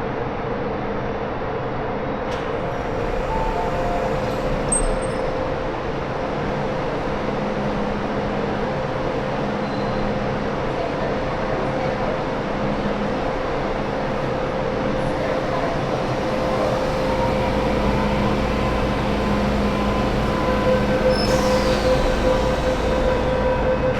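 MTR M-train, an electric metro train, running along the station platform with a steady rumble and a held hum. The low rumble grows about two-thirds of the way through, and faint high wheel squeals come in near the end.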